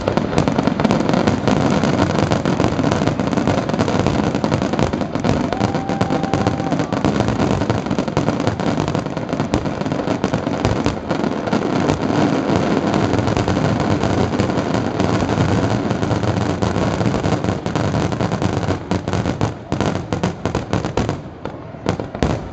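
Fireworks display: a dense, continuous barrage of aerial shell bursts and crackle with heavy rumble. It thins to separate bangs near the end.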